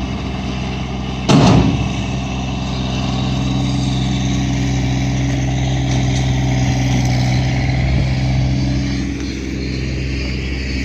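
An engine running steadily, with a single thump about a second in.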